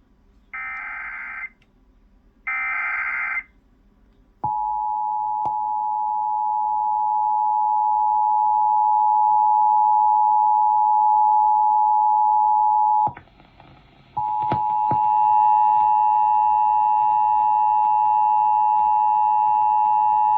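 Emergency Alert System broadcast tones. The last two of three roughly one-second bursts of the SAME digital header screech, then the two-tone attention signal starts at about 4.5 s as a steady, loud, harsh pair of tones. It drops out into a brief burst of noise at about 13 s and comes back a second later with a faint higher tone mixed in.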